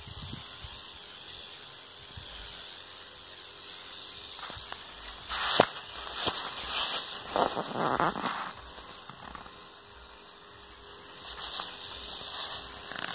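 Crackling and rustling handling noise as the camera is brushed and moved among rose bushes, loudest through the middle and again near the end, with sharp clicks. Underneath is a faint steady hiss from a backpack sprayer misting the plants.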